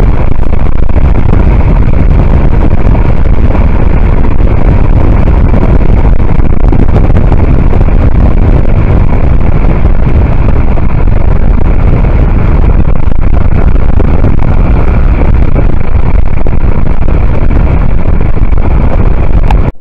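Loud, steady road and wind noise from a moving car, heavy in the low rumble, with wind buffeting the microphone.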